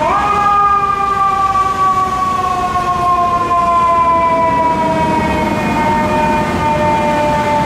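Fire engine's mechanical siren wailing and slowly winding down in pitch, over the truck's engine rumble.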